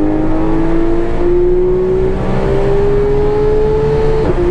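Porsche 991.1 GT3's naturally aspirated flat-six, breathing through an aftermarket GMG exhaust, revving steadily higher under hard acceleration. Near the end the pitch drops sharply as the PDK gearbox shifts up, then climbs again.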